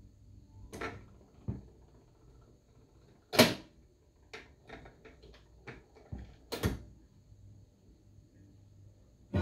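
Automatic record changer cycling through a stack of 7-inch singles: a string of mechanical clicks and knocks, the loudest about three and a half seconds in as the next record drops onto the platter, then smaller clicks and another knock about six and a half seconds in as the tonearm swings over and sets down, over a faint hum.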